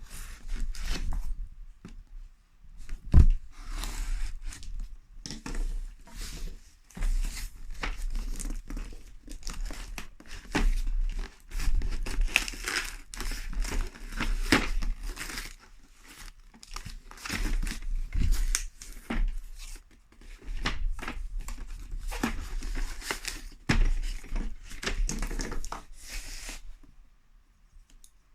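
Packaging being torn open and crinkled as a tool kit is unboxed, in irregular rustling bursts with scattered small knocks, the sharpest knock about three seconds in.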